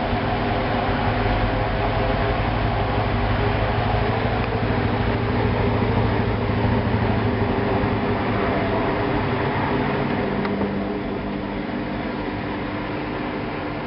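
Hoover washing machine running through its first intermediate spin, the motor and drum giving a steady multi-toned hum. About ten seconds in the low hum fades and the level drops slightly, with a single click.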